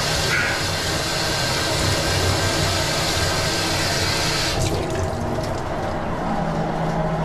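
Tap water running into a stainless steel sink, splashing over leaves that are being rinsed and rubbed by hand. The flow stops about two-thirds of the way through, leaving quieter handling and dripping.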